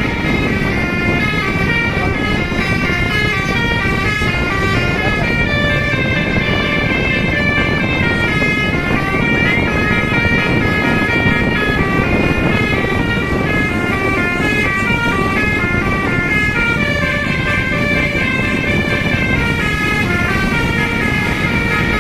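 Telolet basuri multi-tone musical bus horn on an SJM Trans bus, playing a long unbroken run of quickly changing notes, a new note every fraction of a second, over a low rumble.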